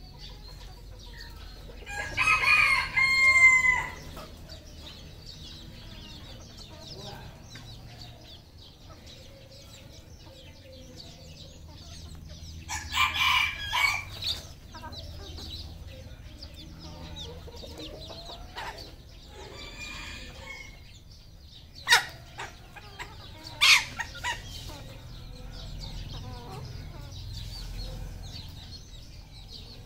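Red junglefowl roosters crowing, once about two seconds in and again, rougher and louder, around thirteen seconds in, with fainter clucking and calls between. Two sharp knocks come later on.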